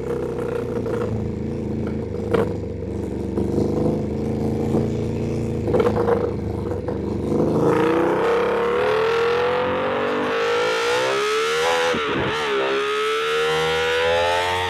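Ducati Panigale V2's V-twin engine running at a steady pitch, with two short sharp clicks, then revving up under acceleration. The pitch climbs, drops briefly at an upshift about twelve seconds in, and climbs again.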